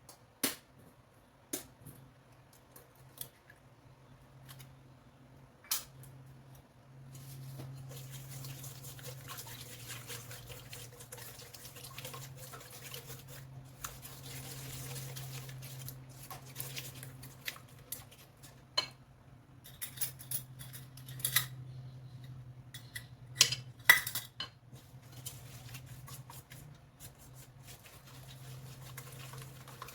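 Kitchen utensils and dishes clinking, knocking and scraping as cookie dough is made, with a steady low hum underneath.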